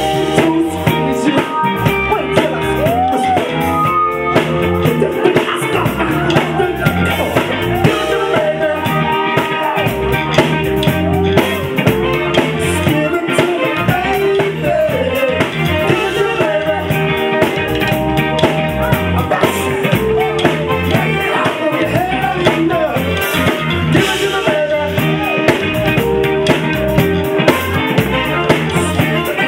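Live soul band playing an upbeat number: drum kit keeping a steady beat under electric guitar and bass, with a singer's voice over the band.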